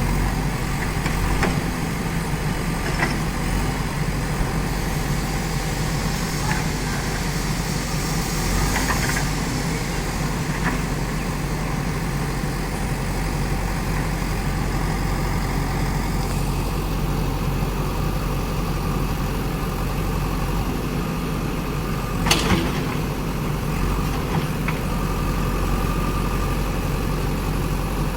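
JCB backhoe loader's diesel engine running steadily, with a few sharp knocks or clanks, the loudest about 22 seconds in.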